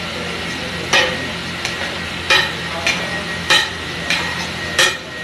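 Metal spatula striking and scraping across a large flat tawa as thick pav bhaji is stirred and mashed, about seven sharp strokes at a little under one a second, over a steady frying sizzle.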